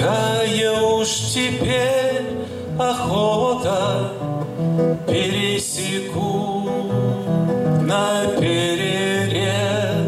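A man singing a slow bard song, accompanying himself on acoustic guitar.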